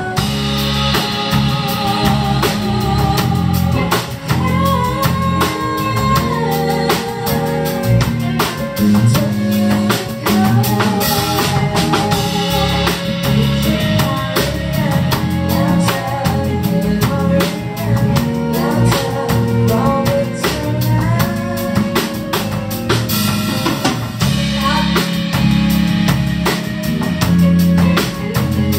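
Pop band playing a passage of the song: a drum kit with bass drum and rimshots keeps a steady beat under bass and a wavering melodic lead line.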